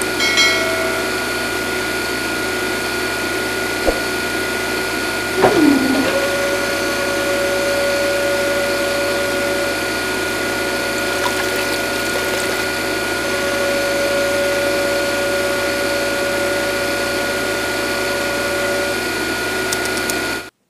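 Small DC motor of a toy drilling rig running steadily, turning a plastic-tube drill pipe in wet sand, with a steady whine. About five seconds in, a tone slides down in pitch and then settles into a second steady hum.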